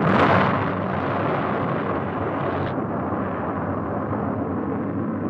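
An Atlas rocket booster blowing up: a sudden loud blast, then a steady rumble. The higher hiss drops away about two and a half seconds in.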